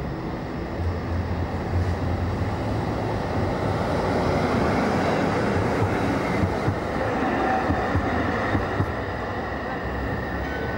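Historic Düwag type L tram passing close by on street track, the rumble of its wheels on the rails swelling to a peak about halfway through. Several short sharp knocks come from the running gear as it passes.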